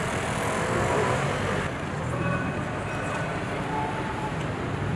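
Busy city street ambience: a steady wash of road traffic noise.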